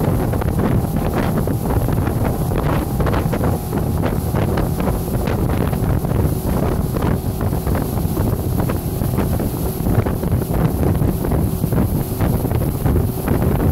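Heavy wind buffeting on the microphone over the steady running of a motorboat's outboard motor at speed, with the rush of the churning wake.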